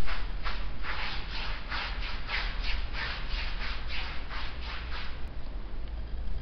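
Repeated rubbing strokes of a hand tool across a wall coated with gritty sand-textured decorative paint, about three strokes a second. The strokes stop about five seconds in.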